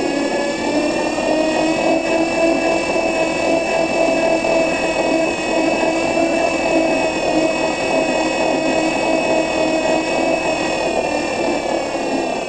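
Electric city bus's drive motor whining: several steady tones over a rushing noise, rising slightly in the first couple of seconds, holding, then sinking near the end.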